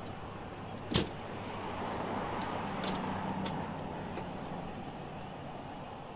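Steady vehicle engine and traffic noise, with one sharp clack about a second in and a few lighter clicks after.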